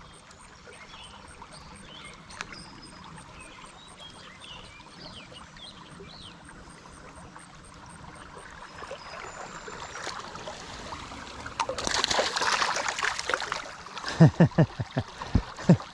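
Creek water trickling steadily, then a louder rush of splashing water about twelve seconds in, lasting over a second, followed by several sharp splashes near the end as a smallmouth bass is released back into the creek.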